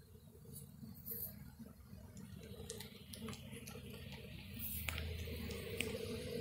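Faint buzzing of a small honeybee swarm flying around a wooden hive box, growing a little louder about two-thirds of the way in, with a few light clicks.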